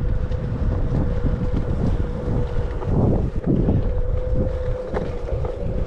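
Onewheel electric board ridden along a dirt trail: wind buffets the microphone over a low rumble from the tyre rolling on the ground, with a steady thin whine from the hub motor. A few louder knocks from bumps come about three seconds in.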